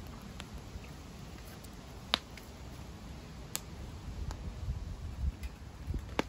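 Wood fire in a steel fire bowl crackling, with a handful of sharp pops from the burning logs, the loudest about two seconds in and another near the end, over a low steady rumble.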